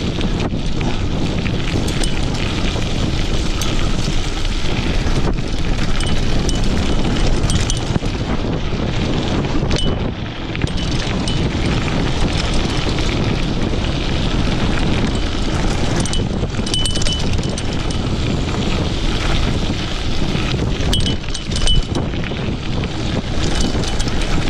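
Wind rushing over the microphone of a mountain bike riding a rough dirt track, with tyre noise and the rattle of the bike over bumps throughout. A few short high ringing notes come through now and then.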